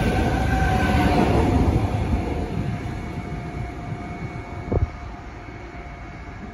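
Deutsche Bahn ICE 3 high-speed train running past close by and pulling away, its rumble and motor whine loud at first and fading over the first few seconds. A brief thump comes a little before five seconds in.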